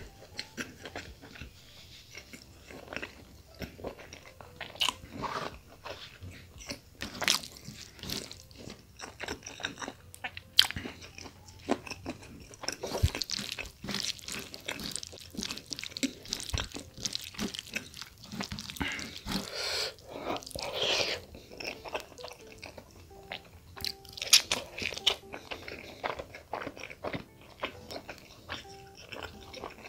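Close-up chewing of chicken gizzard and liver with curry rice: irregular wet smacks, mouth clicks and biting sounds.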